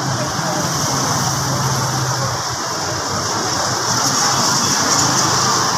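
Steady mechanical rushing noise with a low hum underneath, the hum strongest for the first couple of seconds.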